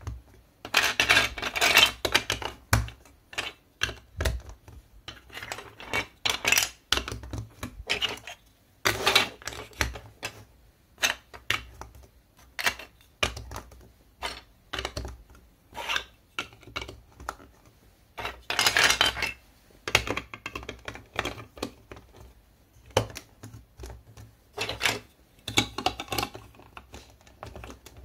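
Large plastic building blocks being handled and pressed together: irregular clicks and snaps of hollow plastic bricks, with a few longer bursts of pieces clattering against each other.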